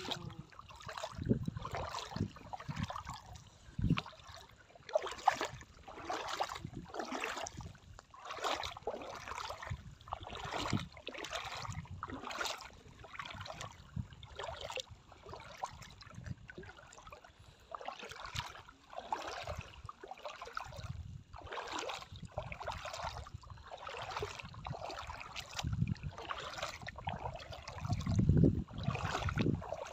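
Shallow seawater splashing and sloshing in short repeated surges, roughly one a second, with a few low thumps, the loudest near the end.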